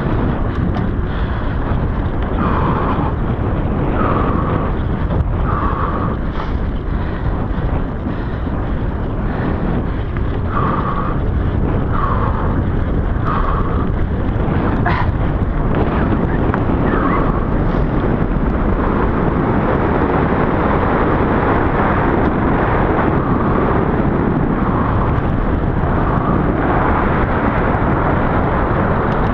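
Wind buffeting a GoPro microphone as a mountain bike rides fast over a dirt trail, with tyre and frame rumble from the rough surface. A single short knock from a bump about halfway through.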